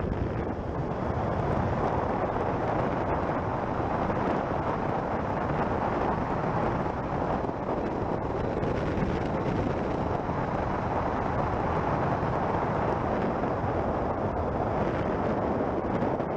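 Wind rushing over the microphone at riding speed, mixed with the steady running of a Triumph Street Triple's three-cylinder engine.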